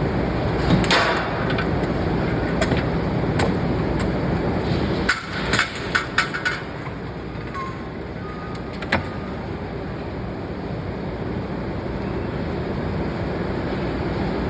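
Forging shop noise: a steady low industrial rumble with sharp metal-on-metal strikes and clanks scattered through it, including a quick run of several strikes about five to six and a half seconds in.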